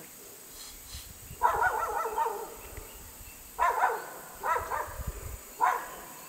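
A dog barking: one longer, drawn-out outburst, then three short barks.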